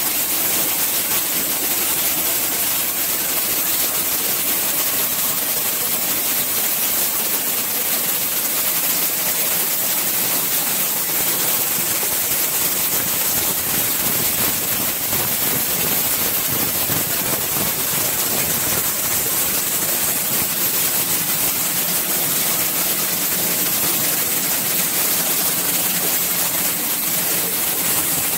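Corn mill processing machinery running: a steady, loud mechanical din with a strong hiss and a faint even hum beneath it, unchanging throughout.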